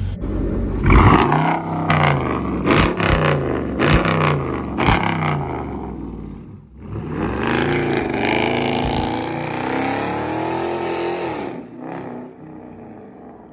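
Dodge Charger R/T's 5.7-litre Hemi V8 revved in a series of quick blips, then a longer rev that holds for a few seconds before fading out near the end.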